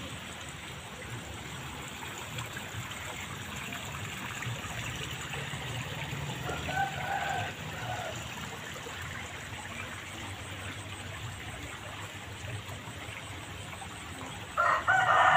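Water running steadily in a small open ditch. A brief animal call comes midway, and a rooster crows loudly near the end.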